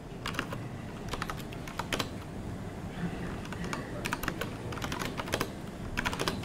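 Typing on a MacBook Pro laptop keyboard: a few short runs of key clicks with pauses between them.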